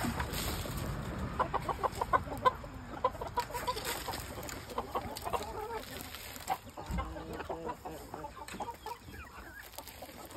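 Chickens clucking: short, repeated pitched calls in quick runs, scattered throughout.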